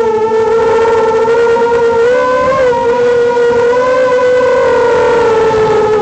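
Emax RS2205 brushless motors of a QAV210 FPV racing quadcopter on a 3S battery, a loud steady whine whose pitch rises and falls slightly as the throttle changes in flight.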